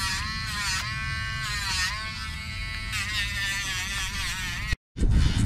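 Rotary nail grinder whining at high speed on a dog's nails, its pitch sagging briefly several times as the sanding drum is pressed against a nail. It cuts off suddenly near the end, replaced by a loud low rumble.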